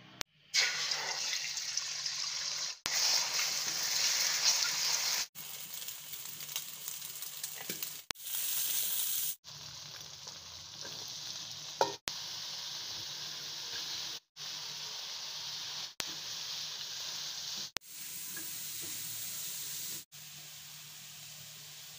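Beaten egg and chopped vegetables sizzling in hot oil in a steel wok as they are stir-fried. The sizzle cuts off and starts again at a slightly different level every two to three seconds, with one sharp clack about halfway through.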